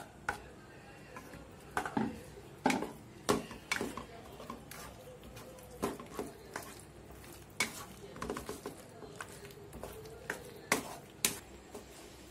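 Macaroni being stirred into a thick white sauce in a stainless steel pan with a spatula: irregular scrapes and knocks of the spatula against the pan.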